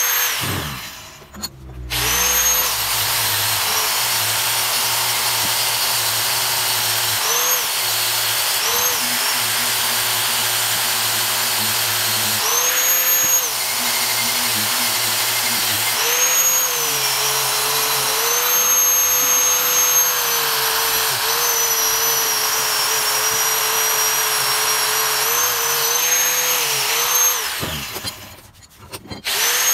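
An electric power tool's motor running with a steady high whine whose pitch rises and falls a little as the load changes. It winds down and back up about a second in, and again near the end.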